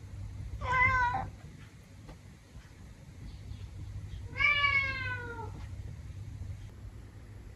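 Adult male domestic cat meowing twice: a short meow about a second in, then a longer meow that falls in pitch about four and a half seconds in. A steady low hum runs underneath.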